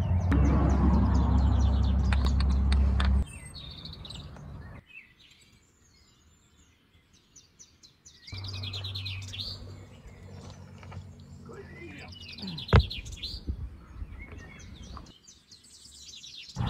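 Small birds chirping repeatedly, over a low steady hum that is loud for the first three seconds, stops, and returns midway. A single sharp click comes near the end.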